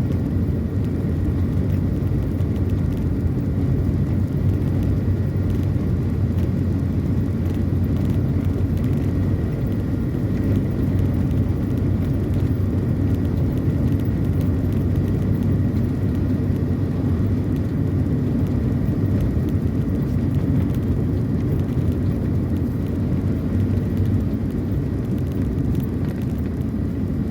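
A car driving on the road: a steady low rumble of engine and tyres that holds an even level throughout.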